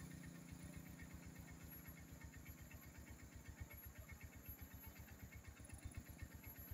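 Faint engine idling: a low, even pulsing of about a dozen beats a second.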